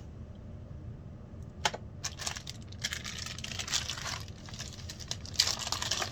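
Packaging being handled during an unboxing: after a quiet start and a single click, rustling and crinkling with many small clicks and taps begin about two seconds in.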